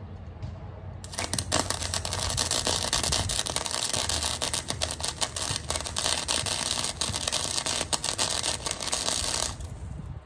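Flux-core MIG welder arc crackling steadily as a bead is laid, welding a steel tab onto a minibike frame. It strikes about a second in and cuts off shortly before the end.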